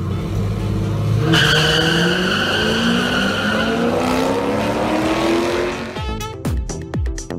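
Cars launching down a drag strip: engines revving hard, their pitch rising steadily for several seconds, with a high tire squeal from about a second in. Near the end the sound breaks into a few sharp knocks.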